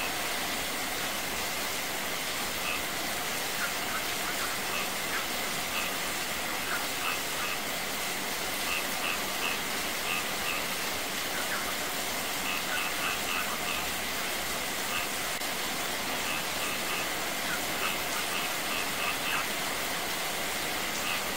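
Steady rain falling on a wet courtyard, with a small waterfall splashing over rocks and a thin stream of runoff pouring down. Short high chirps come in small clusters every second or two over the steady rush of water.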